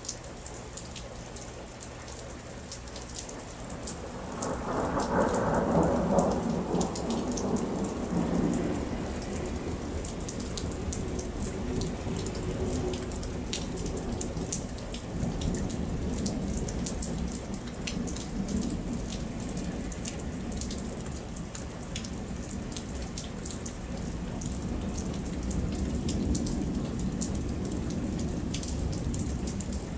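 Steady rain falling on pavement, with close drips ticking throughout. A roll of thunder swells about four seconds in and fades away over several seconds. A softer rumble of thunder comes near the end.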